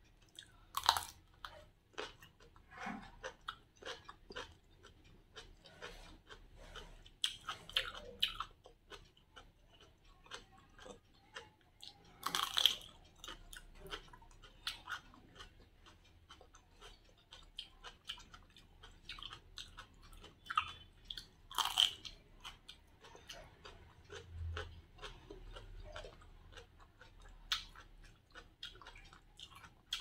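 Close-up chewing of raw cucumber, with crisp crunching bites standing out every few seconds, the sharpest about 12 and 22 seconds in.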